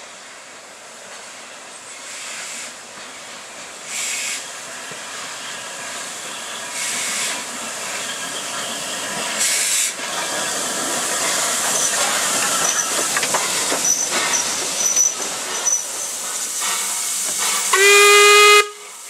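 A steam tank locomotive's hiss and running noise grow louder as it draws in with its train. Near the end an A1X 'Terrier' tank engine gives one short steam whistle blast as it departs.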